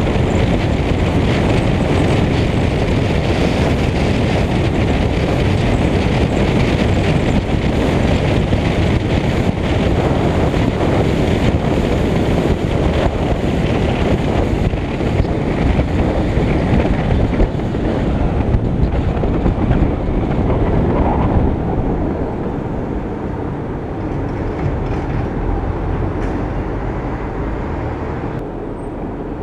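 Wind buffeting the microphone of a camera mounted outside a moving Lincoln Mark VIII, with a steady rumble of road and tyre noise. The noise eases off in the last several seconds as the car slows.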